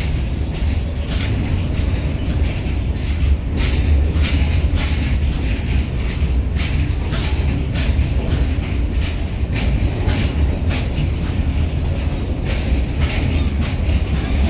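Indian Railways goods train of open-top steel wagons rolling past close by: a steady loud rumble with a rapid, irregular clacking of wagon wheels over the rail joints.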